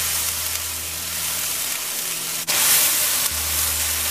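Guyana black shrimp and ground onion sizzling in hot oil in a non-stick wok, stirred with a wooden spoon. The sizzle breaks off for an instant about two and a half seconds in and comes back louder.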